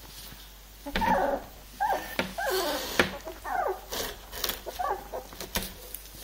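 Three-week-old Labrador puppies whimpering and squealing, a run of about five short high, wavering cries with a few small clicks between them.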